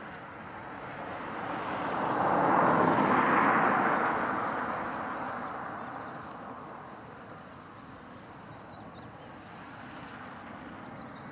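Fendt 724 tractor with a six-furrow plough passing by, its engine and working noise swelling to a peak after a few seconds and then fading away as it moves off.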